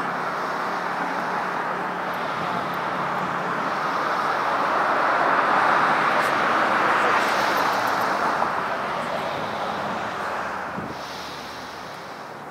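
Road traffic noise: an even rushing that swells as a vehicle passes, loudest mid-way, then fades away.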